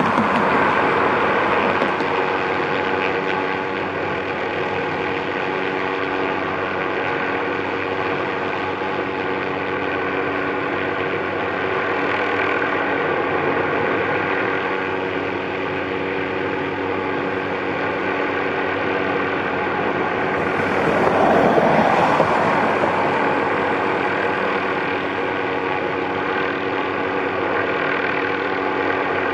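MD 530F helicopter's turbine and rotor running steadily in flight, with a steady whine of several tones over the rotor noise. The sound swells louder about twenty seconds in, then settles back.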